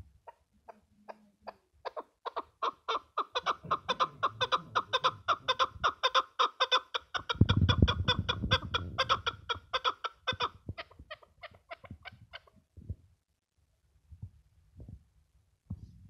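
Chukar partridge calling: a long run of short clucking chuk notes that starts sparse, speeds up to a steady stream of about five a second, then slows and stops. A loud low rumble about halfway through.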